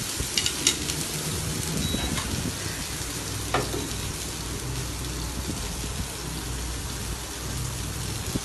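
Oil sizzling steadily in a hot frying pan just used to sear chicken, with a few sharp clicks, twice near the start and once about three and a half seconds in.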